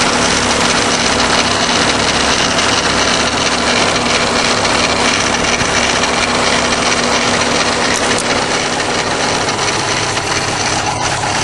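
Subaru WRX engine running at idle with a steady grinding noise from the front of the engine around the timing belt cover; its cause is unknown to the owner.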